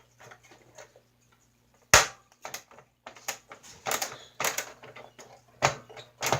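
Small plastic parts of a toy RC snowmobile clicking and knocking as the shocks are worked off by hand: a sharp knock about two seconds in, a run of small ticks, and two more knocks near the end.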